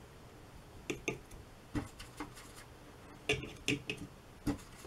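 Watercolour brush clicking and tapping against the pans of a paint box as paint is picked up: a series of light, sharp ticks, about eight over a few seconds, some in quick pairs.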